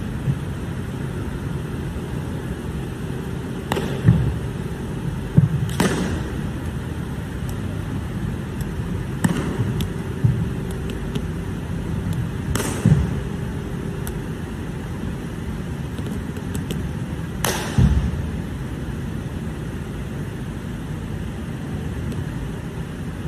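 Sharp smacks and dull thuds of a changquan wushu routine: hand slaps, stamps and landings on the carpeted floor. They come in about five clusters over a steady background hum.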